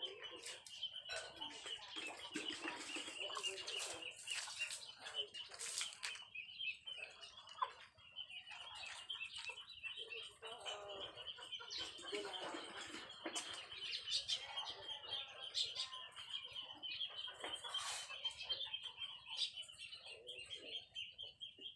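Yard ambience: chickens clucking over a steady high-pitched chirring, with scattered short splashes and knocks from a bicycle being washed by hand with a dipper of water.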